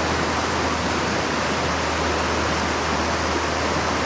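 Steady rushing of a small mountain creek's flowing water.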